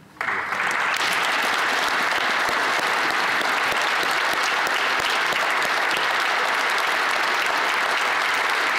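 Sustained applause from a large group of members of parliament clapping, starting just after the beginning and holding steady.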